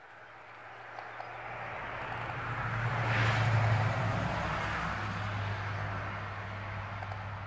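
A road vehicle driving past: its noise grows louder to a peak about three and a half seconds in, then slowly fades, with a steady low engine hum underneath.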